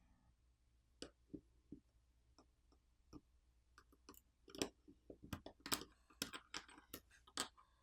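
Faint, scattered clicks and taps of small hand tools against a smartphone's internal parts as it is taken apart. The clicks are sparse at first and come closer together in the second half.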